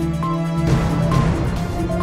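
News-bulletin theme music: sustained synthesizer notes over a low pulsing beat, with a rushing swell coming in under a second in.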